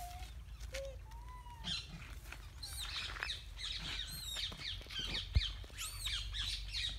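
Many short, high chirping calls overlapping one another, thickest from about two and a half seconds in, with a single low thump about five seconds in.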